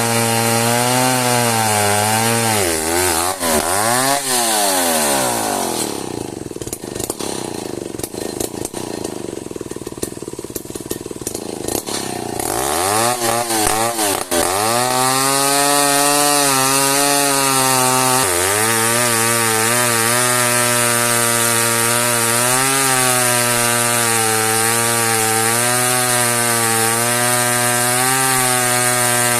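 Chainsaw cutting an old merbau hardwood log at high revs. About three seconds in the revs dip and recover. Then the saw goes quieter for about six seconds, with clicking, before revving back up and running steadily through the cut.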